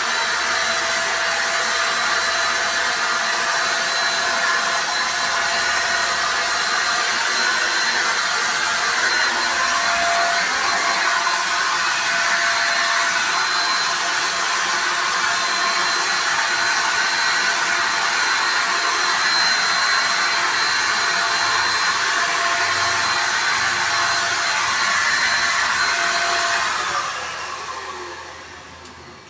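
Ingco electric paint spray gun running steadily while spraying paint, a steady motor whine over a loud hiss of air. Near the end it is switched off and the motor winds down.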